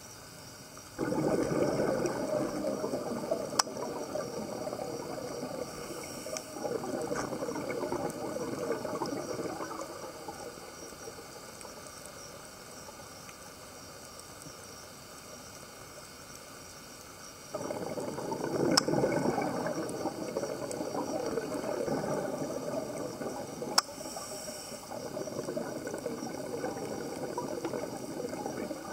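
Scuba diver's exhaled bubbles from the regulator, underwater: bursts of rushing, crackling bubbles lasting several seconds. One set starts about a second in and another about two-thirds of the way through, with a quieter stretch between. A few sharp single clicks stand out.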